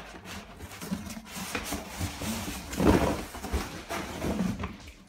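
A cardboard box and a fabric carry bag rustling and scraping as a boxed aluminium motorcycle top case is lifted out, with a louder dull thump about three seconds in.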